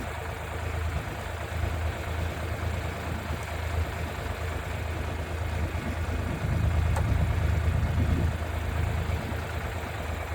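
Tractor engine idling steadily, a low even hum that swells a little louder for a couple of seconds past the middle.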